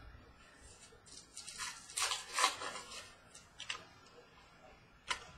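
Trading cards being handled: paper-like rustling and cards sliding against one another, strongest about two seconds in, with a few short sharp clicks near the end.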